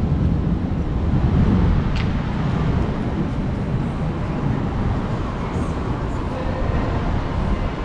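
Steady low outdoor rumble, like street noise or wind on the microphone, with a faint click about two seconds in.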